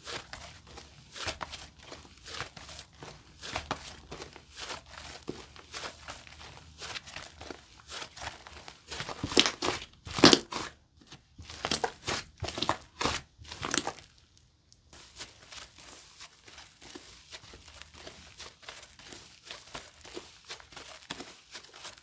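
Bubble slime made of clear slime, clay and snow powder being squished and stretched by hand, giving a run of irregular crackles and pops, loudest in the middle, then a short pause and softer crackling.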